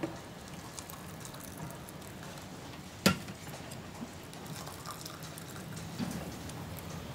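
Hot water poured from an electric kettle into a glass tea cup, a steady pouring stream, with one sharp clink about three seconds in.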